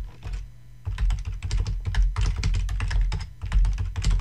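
Typing on a computer keyboard: quick runs of keystrokes, with a short pause about half a second in and a dense stretch of fast typing after that.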